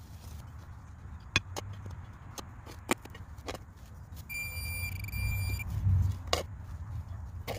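Several sharp clicks and knocks as a turf plug is dug out of a lawn. About four seconds in, a handheld metal-detecting pinpointer sounds a steady high buzzing alert for about a second and a half, showing a metal target in the hole. A low rumble of the shovel working in the soil follows, with one more knock.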